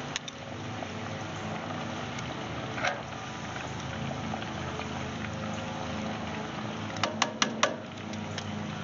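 French fries deep-frying in hot oil in a cast iron pot, a steady bubbling sizzle. Metal tongs click against the pot once about three seconds in and four times in quick succession about seven seconds in.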